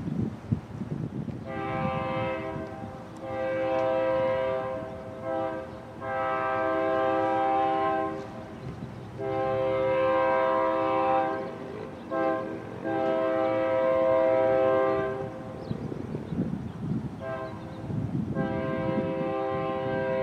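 Union Pacific freight locomotive's multi-chime air horn sounding a series of loud blasts, mostly long (about two seconds each) with a couple of short ones, the warning for the grade crossing as the train approaches. A low rumble of the oncoming train runs underneath.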